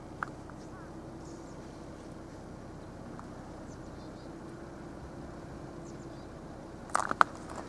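Steady hum of a car's engine and cabin, heard from inside the moving or idling car. Near the end comes a short cluster of sharp, loud sounds.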